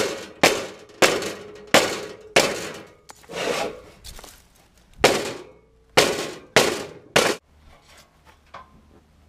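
Rubber mallet striking a sheet of mild steel laid over a steel train rail, bending it into shape: about ten clangs at uneven intervals, each with a short metallic ring. After about seven seconds only a few faint knocks remain.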